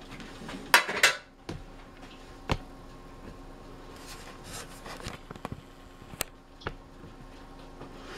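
Kitchen clatter of pans and utensils: a couple of sharp knocks about a second in, then a few scattered lighter clicks.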